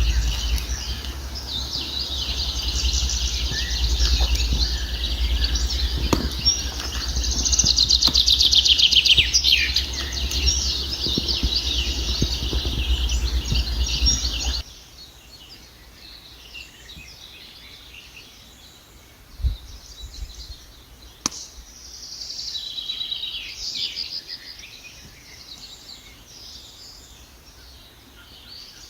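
Songbirds singing and trilling over a steady low rumble, including a loud descending trill. About halfway through the rumble stops abruptly and the birdsong turns fainter. A couple of sharp pops, like a campfire crackling, come through afterwards.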